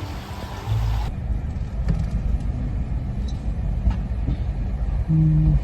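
Car running, a steady low rumble, beginning after an abrupt cut about a second in, with a short steady tone near the end.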